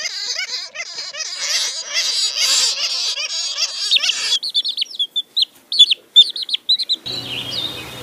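A roosting colony of flying foxes giving a dense, overlapping chorus of squabbling squeals and chatter. A little past the middle it thins to a run of separate sharp, high chirps. About a second before the end it gives way to a steady outdoor hiss with a low hum.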